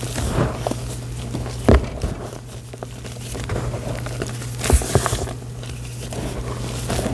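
Magnesia chalk being rustled and crumbled close to the microphone: irregular crinkly rustling and crackling, with sharper crunches about two seconds in and again around five seconds in. A steady low hum runs underneath.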